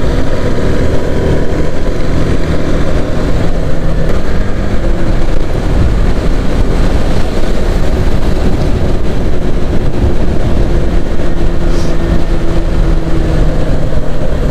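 Motorcycle riding at cruising speed: a steady engine hum under heavy wind rushing over the microphone, with the engine note stepping up in pitch about four seconds in.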